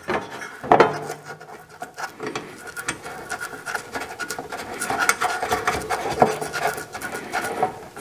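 Small metal-on-metal scraping and clicking as a nut is worked on by hand at the combustion fan motor mount inside an RV furnace's sheet-metal housing, with fingers rubbing against the metal. There is a louder knock about a second in and another near six seconds.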